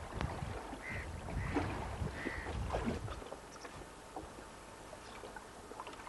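Boat on a river: a low, even rumble of the crossing, with three short high-pitched calls in the first half.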